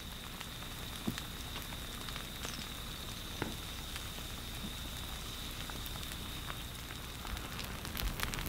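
Faint, sparse crackles and ticks of an advancing pāhoehoe lava flow, its cooling crust cracking, growing busier near the end, over a steady thin high whine.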